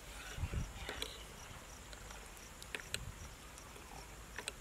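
Steel ladle stirring heated milk in a steel pot as it curdles, with a few light clicks and clinks. Under it, crickets chirp faintly and steadily, about three chirps a second.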